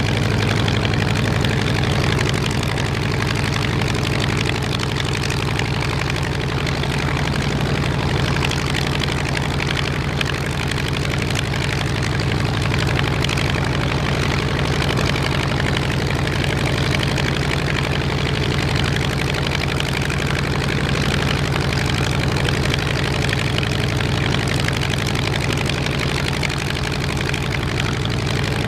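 Focke-Wulf Fw 190 A-8's radial engine idling steadily on the ground while it warms up, with the propeller turning.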